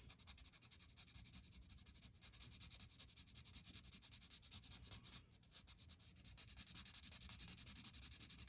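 Faint, rapid back-and-forth scratching of a marker colouring in on paper, a little louder near the end.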